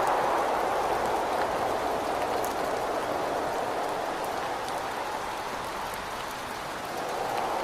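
Steady rain with a rushing wind that eases through the middle and swells again near the end, faint drop ticks scattered over it.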